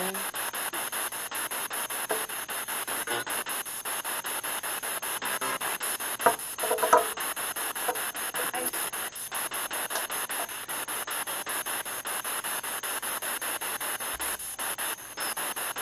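Spirit box scanning through radio stations: a steady, rapidly chopped hiss of static, with brief snatches of voice-like radio sound about six to seven seconds in.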